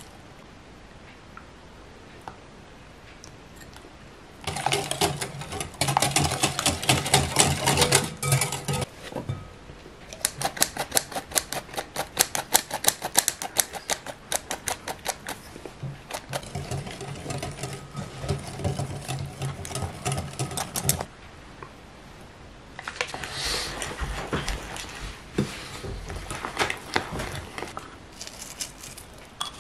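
Food preparation in a glass mixing bowl: a metal wire whisk beating the egg mixture in a fast, even clatter against the glass, a sieve tapped and shaken as flour goes into the bowl, and a spoon stirring a thick, sticky dough. The clattering comes in spells with short pauses between them, after a few quiet seconds at the start.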